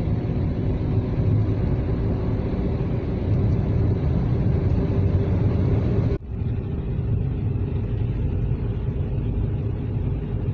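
Steady engine and road rumble inside the cabin of an automatic car driving along a road, with a momentary drop in the sound about six seconds in.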